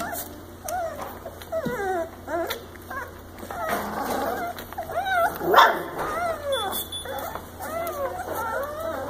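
German shorthaired pointer puppies whimpering and squealing, many short high cries that slide up and down in pitch and overlap one another, with one louder cry about five and a half seconds in.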